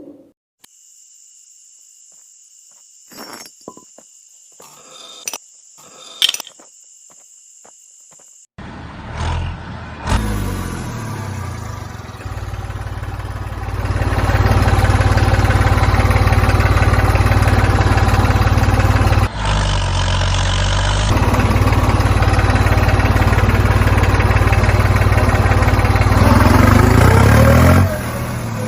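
Light clicks over a faint steady high whine, then about a third of the way in a motor starts running loudly and steadily, a rumbling, noisy drone that grows louder a few seconds later and briefly drops out twice.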